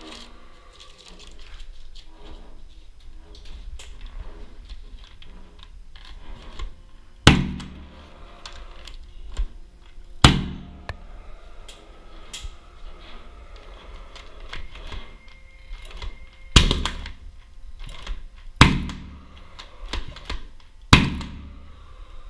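Toua gas-actuated nailer firing five times, driving fasteners through a metal ceiling profile into the ceiling. Each shot is a sharp bang with a short ringing tail, the last three closer together, with lighter clicks and rattles of handling between them.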